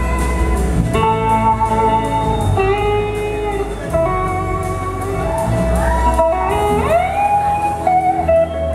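Live blues-rock band music: an electric slide guitar lead on a Gibson SG plays long held notes, several gliding up in pitch about two-thirds of the way in, over a second electric guitar and a steady low bass.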